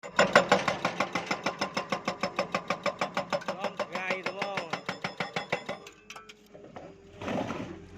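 Excavator-mounted hydraulic breaker hammering on rock in a rapid, even run of about seven blows a second, some with a ringing tone, then stopping about six seconds in. A short burst of noise follows near the end.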